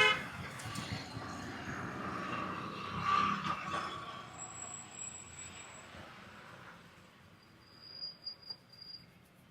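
Road traffic going by: a vehicle passes, swelling and fading over a few seconds. A brief sharp pitched sound at the very start is the loudest moment.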